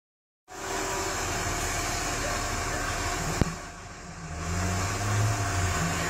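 Robot vacuum cleaner running with a steady whir, a sharp click about three and a half seconds in, then a low hum coming and going.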